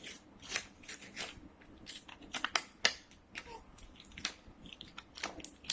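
Plastic toy packaging being handled and torn open: a run of irregular sharp crackles and rips as a small figure is unwrapped.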